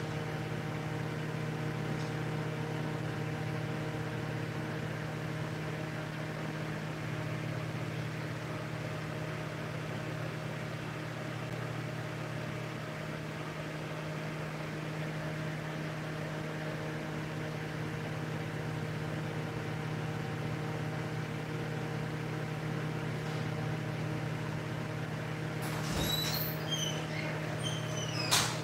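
A steady mechanical hum with a low drone and a few fixed tones above it. Near the end come a few clicks and short squeaks.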